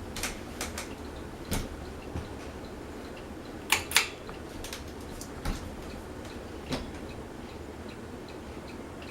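Fasco Gulf Stream ceiling fan running with a steady low hum and a faint, regular ticking. Several sharper clicks fall irregularly through it, the loudest a pair close together about four seconds in.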